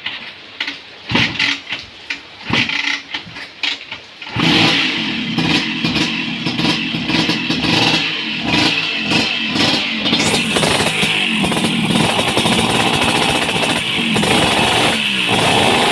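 Vespa PX single-cylinder two-stroke scooter engine with an aftermarket RC ignition. For about four seconds it gives a few irregular bursts, then catches and runs loudly, its revs rising and falling.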